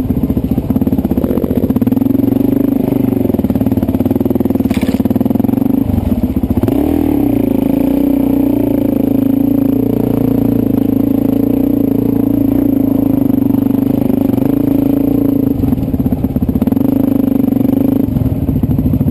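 Dirt bike engine running while the bike is ridden over a rough trail, its pitch holding mostly steady and rising and falling with the throttle, most clearly about seven seconds in.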